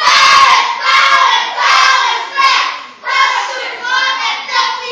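Children's voices chanting together in a run of short, loud phrases.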